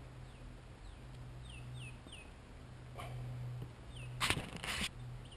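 A songbird giving short down-slurred whistles in groups of two or three, over a low steady hum. About four seconds in come two brief, loud scuffling noises, the loudest sounds here.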